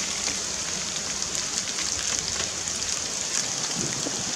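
Ground-beef burger patty sizzling in a pan on a portable gas stove: a steady frying hiss with fine crackles.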